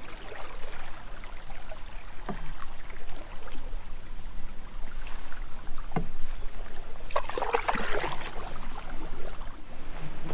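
A canoe being paddled: paddle strokes swishing in the water, with a few sharp knocks and a splashier stretch near the end.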